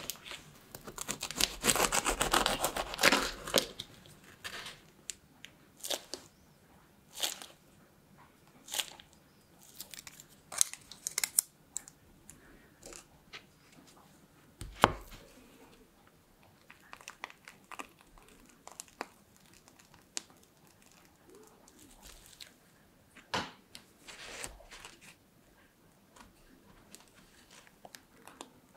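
A knife cutting through a crisp, baked choux pastry shell: a dense crackling crunch for about three seconds. After it come scattered crisp crackles and light taps as the cut shells are handled and set down on a wooden board, with one sharper knock about halfway.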